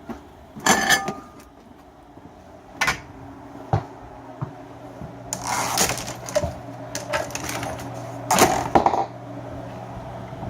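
Pieces of scrap metal clinking and clattering as they are handled, a few separate sharp knocks followed by a busier run of clatter in the second half. A faint low hum runs underneath from about four seconds in.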